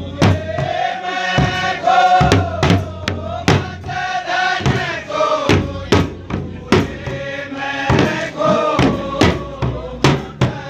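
Men singing a Kumaoni khadi Holi song together in chorus, with a dhol drum struck with a stick about once or twice a second.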